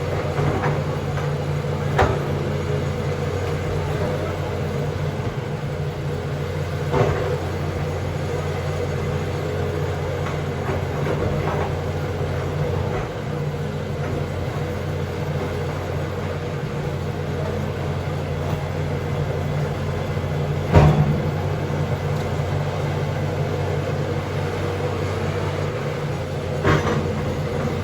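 John Deere backhoe's diesel engine running steadily, with a few short clanks from the machine, the loudest about two-thirds of the way through.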